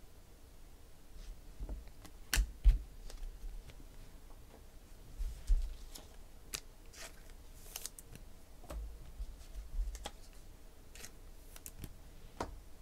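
Football trading cards being handled and set down on a table: scattered light clicks and taps of card stock, with a few louder knocks, the loudest about two and a half seconds in.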